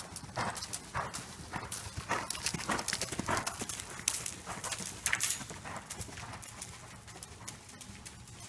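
Horse's hoofbeats on the soft sand footing of an indoor riding arena, a steady run of about two strokes a second, louder in the middle and fading near the end.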